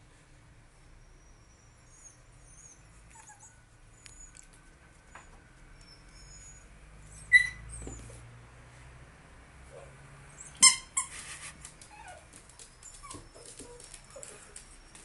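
A dog playing with a noisy toy: faint high squeaks and whines, broken by two sudden loud squeaky notes, about seven and about ten and a half seconds in.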